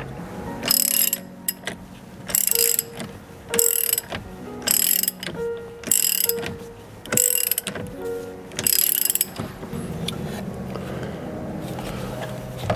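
Ratchet wrench tightening a bolt: about seven ratcheting strokes, a little over a second apart, each a short burst of clicks.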